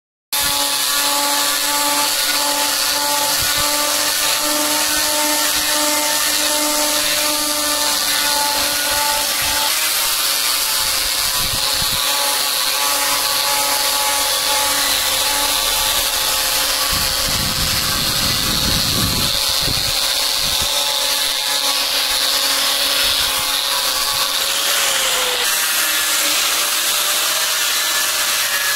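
Electric power tool running steadily while cutting or shaping teak wood, a steady motor whine with a hiss of the cut. It cuts in suddenly at the start; about two-thirds of the way through a heavier rumble comes in for a couple of seconds, and near the end the pitch dips briefly as the tool takes more load.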